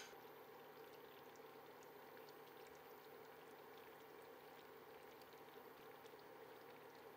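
Sugar-and-water syrup for caramel coming to a boil in a saucepan: faint bubbling with many small pops over a steady hiss. A brief click at the very start.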